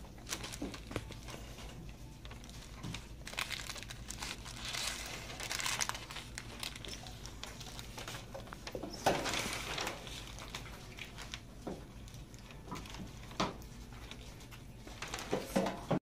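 Paper crinkling and rustling in uneven bursts as slime is kneaded and pressed inside it by hand.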